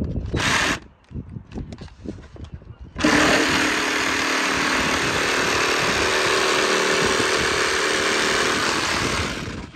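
Cordless jigsaw cutting foil-faced polyurethane insulation board. There is a short burst of the saw about half a second in, then a steady run of cutting from about three seconds in, dying away just before the end.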